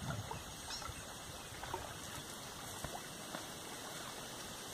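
Steady, faint outdoor background noise along the shore, with a few faint, scattered ticks.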